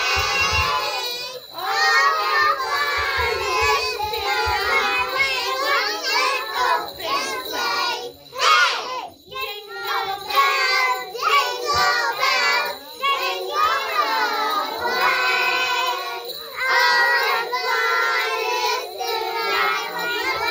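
A group of young children singing a Christmas song together. About halfway through there is a short hissing burst.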